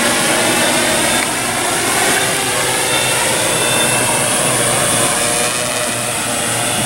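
Tarot T960 hexacopter's six electric motors spinning 18-inch propellers, a loud steady whirring with faint whining tones that shift slightly as the motors adjust, while it hovers close by.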